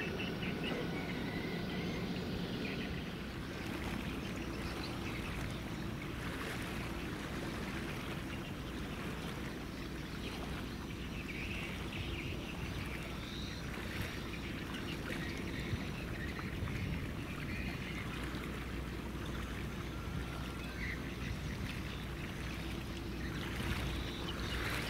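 Passing ships' engines making a low, steady drone, with water washing along their hulls.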